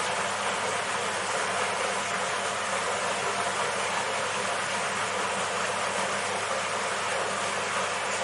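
A steady, even hiss with a low hum beneath it.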